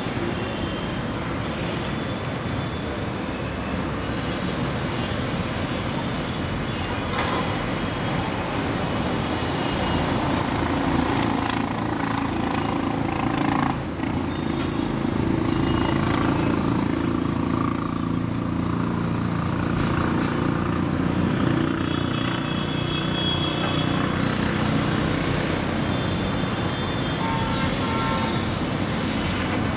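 Steady, distant din of city road traffic heard from high above, with a few faint vehicle horns sounding briefly in the second half.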